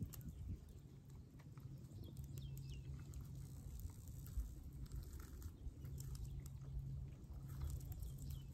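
Faint crackling and small clicks of fingers picking flaky meat from the charred skin of a fire-roasted fish, with a low hum that comes and goes underneath.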